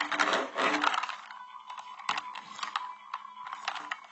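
Clattering rattle of small hard objects for about the first second, then scattered sharp clicks and taps over a faint steady tone.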